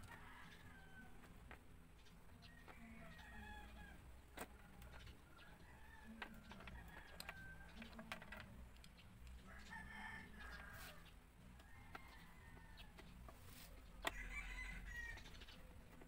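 Chickens in the background: a rooster crowing and hens clucking several times, faint. A few sharp clicks of a screwdriver against a motorcycle's headlight housing, the loudest about fourteen seconds in.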